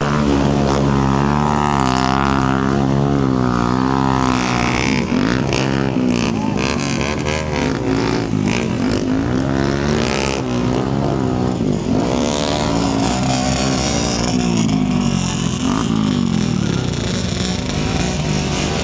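Trail motorcycle engines being revved. Their pitch rises and falls over and over, steadier in the first few seconds and then in repeated swoops.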